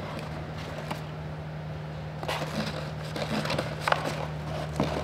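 Cardboard packaging rustling and small parts clicking as hands rummage in a parts box, with a few sharper clicks about two and a half, four and five seconds in, over a steady low hum.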